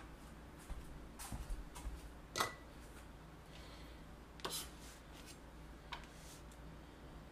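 Knife cutting raw chicken breast into chunks on a cutting board: a few short, scattered cuts and taps of the blade against the board.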